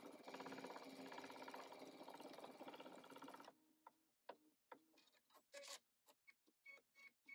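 Embroidery machine stitching a stipple quilting design in a fast, even rhythm, stopping about three and a half seconds in as the design finishes. Scattered short clicks follow.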